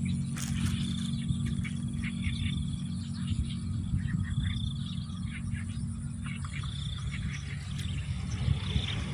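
Swamp animals calling: a short high trill that repeats several times, with scattered clicking calls, over a steady low rumble.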